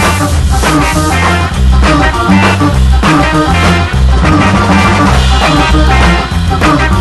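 Upbeat band music with a steady drum beat and a moving bass line.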